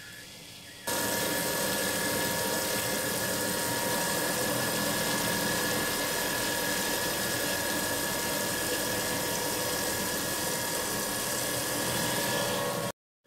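CNC milling machine's 2 mm-radius end mill cutting gear teeth into a stainless steel blank under flood coolant: a steady hiss of spraying coolant with a steady whine from the spindle and cut. It jumps much louder about a second in and cuts off abruptly near the end.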